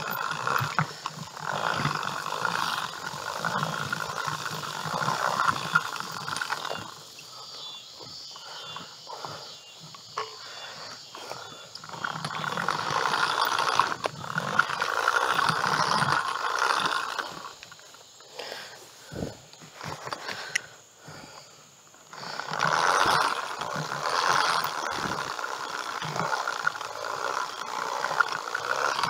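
Tall weeds and brush swishing and rustling against a person wading through an overgrown food plot, in stretches of several seconds with quieter pauses between.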